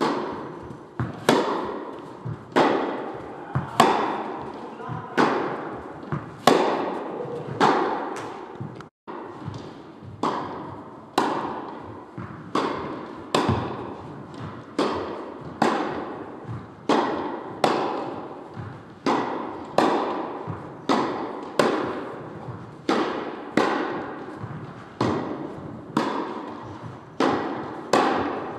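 Tennis balls being struck by rackets and bouncing on the court in a long, continuous rally: regular sharp knocks, about three every two seconds.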